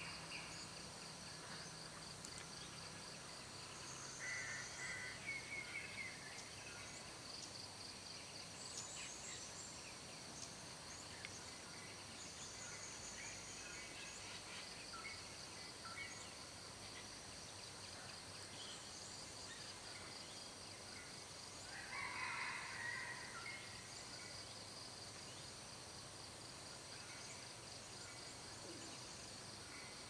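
Dawn chorus: scattered bird calls and chirps over a steady, high, pulsing insect trill, with the loudest burst of bird calls about two-thirds of the way through.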